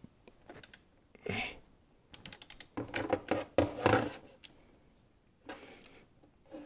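Ratchet of a torque wrench clicking in several quick runs as it is swung back and forth, driving a 19 mm socket on a power steering pump bolt.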